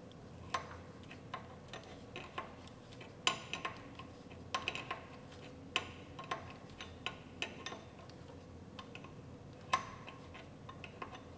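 Faint, irregular metallic clicks and clinks of a wrench working on a power steering pressure line fitting as it is tightened.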